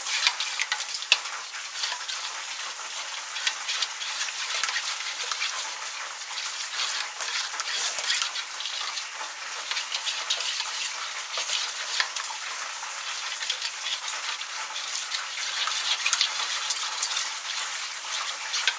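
Chicken wings deep-frying in hot oil: a steady crackling sizzle peppered with many small pops.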